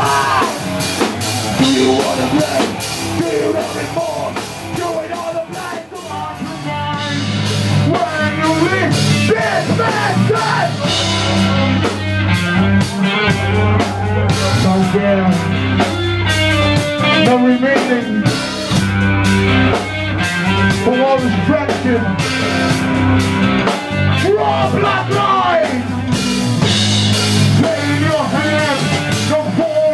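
Alternative metal band playing live: electric guitars, bass and drum kit, with a vocalist singing into a microphone. The sound thins briefly about six seconds in, then the heavy bass and full band come back in.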